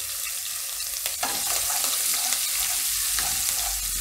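Chopped green chillies sizzling in hot sesame oil with cumin seeds in a kadai: a steady frying hiss as a tadka is tempered. A light knock about a second in.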